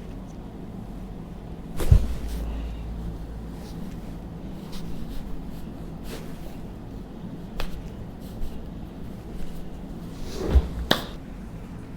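Chiropractic adjustment thrusts on a patient lying on a treatment table: one sharp, heavy thud about two seconds in, a few lighter knocks after it, and a quick double thud with a click near the end.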